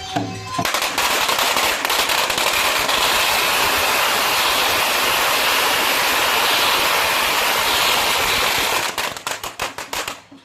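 A long string of firecrackers going off in a rapid, unbroken crackle that starts about half a second in, thins to separate bangs near the end and stops.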